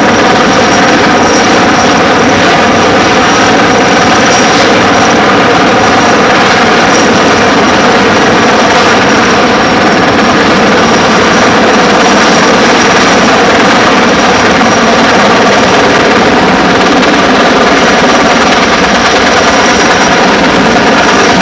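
Sikorsky S-64 Skycrane heavy-lift helicopter flying overhead with a shipping container slung beneath it on a long line: loud, steady rotor and turbine noise with a thin high whine, unchanging throughout.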